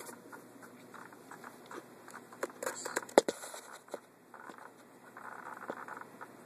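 Handling noise: scattered rustles and small clicks, with one sharp knock about three seconds in as the camera is moved and comes to rest on a wooden surface.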